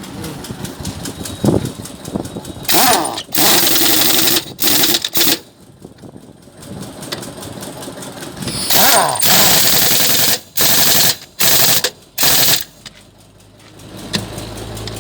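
1-inch pin-less hammer air impact wrench firing in short bursts of rapid hammering: a group of three bursts about three seconds in, a pause, then a group of four shorter bursts about nine seconds in.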